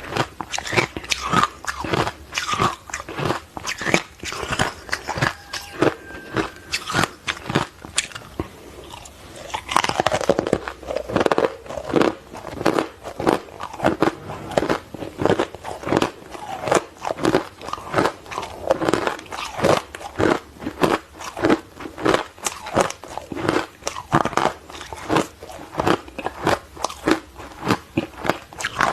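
Close-miked crunching of hard matcha-flavoured ice being bitten and chewed: sharp crackling crunches, about two to three a second, running on without a break.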